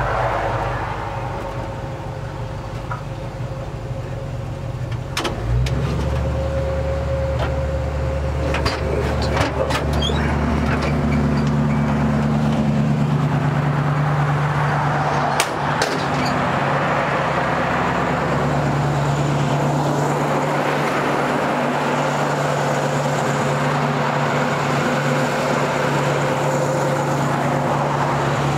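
A vehicle engine running steadily, with a few sharp clicks and knocks about five, nine and fifteen seconds in.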